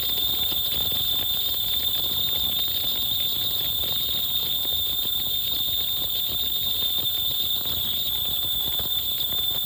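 Ultrasonic sewing machine with a conveyor belt running steadily: a constant high-pitched whine over a dense, even mechanical clatter.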